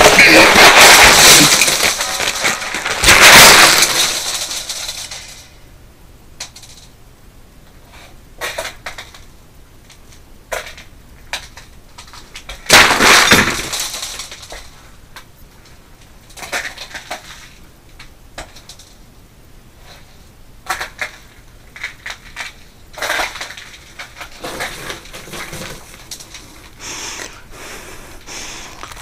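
A cardboard cereal box and its cereal being smashed and crushed: loud crashing crunches in the first four seconds and again about thirteen seconds in, with scattered crackles and clicks in between and after.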